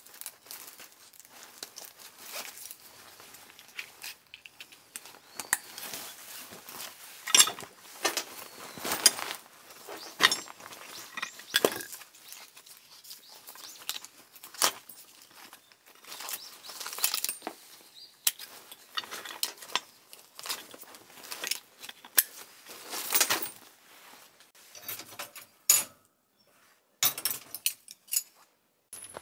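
Irregular clinks, clicks and knocks of things being handled, a few louder than the rest, with short quiet gaps near the end.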